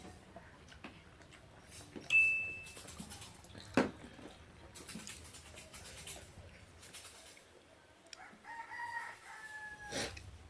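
A rooster crows once near the end, one drawn-out call that dips slightly as it ends. Earlier there is a short, sharp high-pitched squeak about two seconds in and a single sharp knock at around four seconds.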